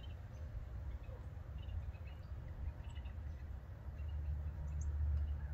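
Steady low wind rumble on the microphone, with faint, scattered short bird chirps over it.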